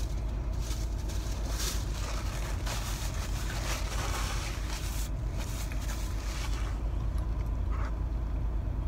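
Low steady hum of a car idling, heard from inside the cabin, with soft sounds of chewing now and then.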